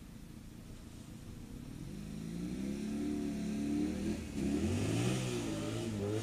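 Motorcycle engine accelerating, its note rising in pitch, dropping briefly about four seconds in as it shifts up, then rising again.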